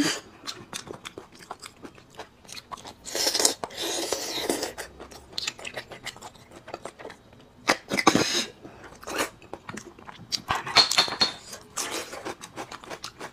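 Close-miked eating sounds: marrow being sucked and slurped out of short sauce-coated bone sections, with wet chewing and many small mouth clicks. Longer sucking slurps come about three seconds in, around eight seconds, and again near eleven seconds.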